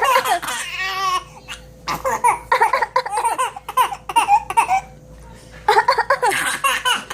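A person laughing hard in three bouts of rapid, pulsing laughter with short pauses between them.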